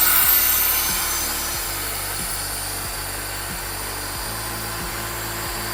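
Pentair IntelliFlo VSF variable-speed pool pump running, a steady hum with a rushing hiss over it, a little louder in the first second.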